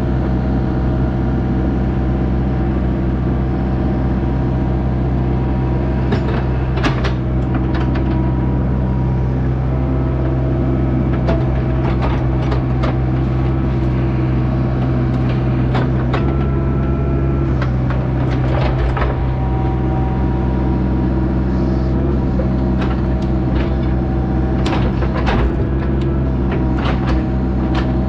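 Diesel engine of a compact earthmoving machine running steadily while it works, with several clanks and knocks from the machine scattered through, in clusters.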